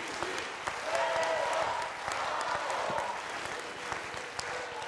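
An audience applauding steadily in a large hall, with a few voices calling out over the clapping.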